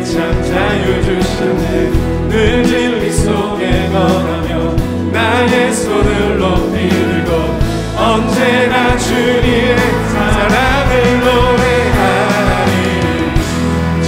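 Live contemporary worship music: a worship team singing a Korean praise song in unison over acoustic guitar and band accompaniment.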